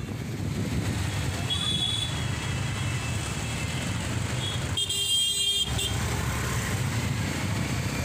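Steady engine and road rumble from a vehicle moving through town traffic, with a vehicle horn honking once for about a second about five seconds in.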